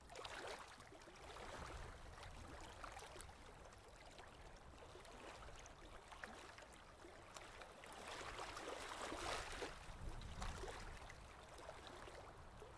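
Faint water lapping, a soft uneven wash that swells a little about eight to ten seconds in, over a low rumble.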